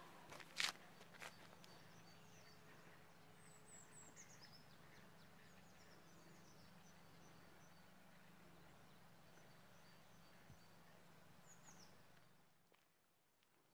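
Quiet outdoor park ambience with faint, high bird chirps coming in short falling runs, a couple of sharp knocks in the first second, and a low steady hum that drops away near the end.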